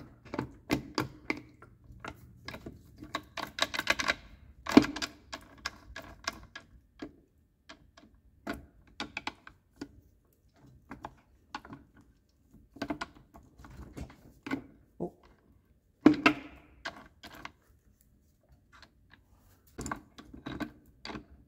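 Irregular metallic clicks and clinks of steel parts inside a 1967 Gravely 430 transmission's clutch assembly as a long shaft through its centre is wiggled and worked by hand to free a stuck part. The clicks come in clusters with short pauses between them.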